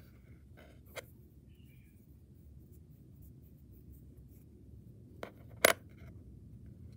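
Nickel one-baht coin handled between fingers: a small click about a second in, then near the end two sharp clicks as the coin is set back down on the table, the second one the loudest.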